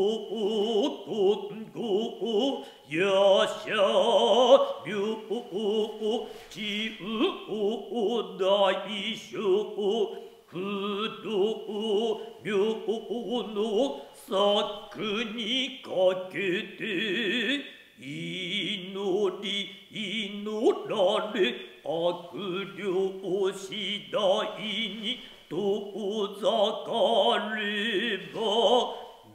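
Noh chant (utai) of the Kanze school sung by male voices, the chorus that accompanies a shimai dance. The lines are held and wavering, broken every second or two by short breaths.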